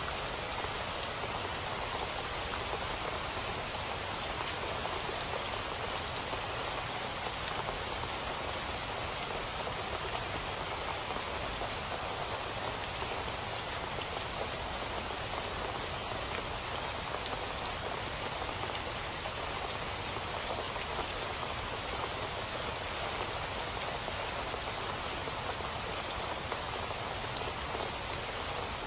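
Steady rain falling, a constant even hiss of many drops with no let-up.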